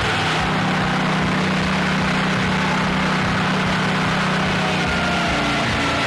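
Portable circular-blade sawmill running and sawing lengthwise through a large log, a loud, steady mechanical noise. Its low hum holds steady through the cut and changes about five seconds in, as the blade comes out of the log.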